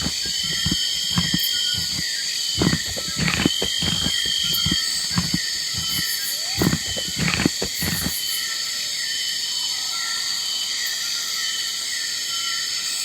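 Wildlife ambience: a steady high buzz with a quick, rhythmic chirping over it, and a series of short low animal sounds that stop about eight seconds in.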